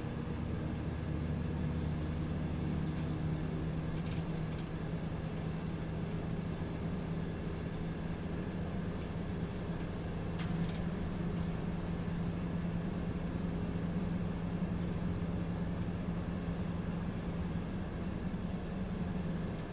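City bus engine and road noise heard from inside the cabin as the bus drives along. The engine's note steps up at the start, holds steady, and drops back at the very end.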